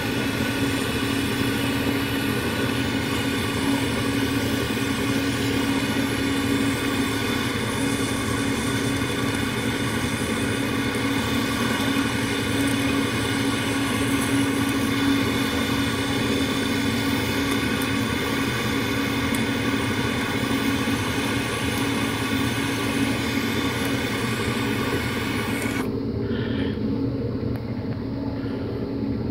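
Handheld butane torch burning with a steady hiss. About 26 seconds in, the hiss cuts off suddenly, leaving a quieter low steady hum.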